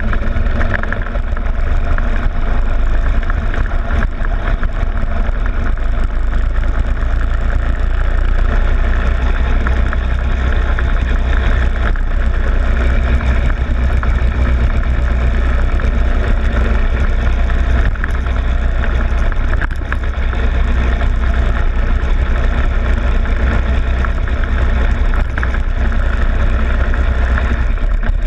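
Go-kart engine running steadily under power, with a heavy low rumble and road and wind noise picked up by a camera fixed to the kart's front plastic fairing. The sound eases briefly twice in the second half.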